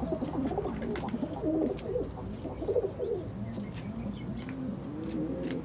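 Several domestic pigeons, Pakistani flyers, cooing in their loft: many short, overlapping low coos that rise and fall.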